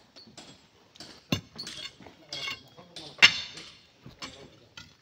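Steel hand tools striking rock as boulders are broken up: sharp metallic clinks at irregular intervals, the loudest about three seconds in.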